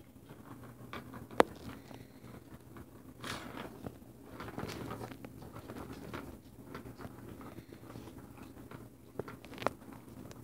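A cat pawing at a plastic ball-track toy: sharp plastic clicks and knocks, the loudest about a second and a half in and two more near the end, with irregular rattling and scuffling between them.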